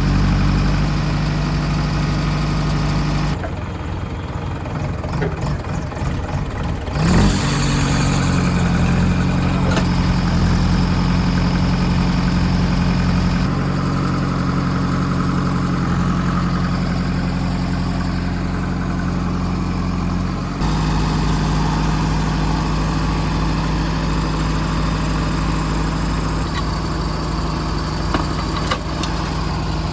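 Diesel engines of a tractor and a JCB backhoe loader running, mostly steady, with the engine sound changing abruptly several times. A brief loud clatter about seven seconds in.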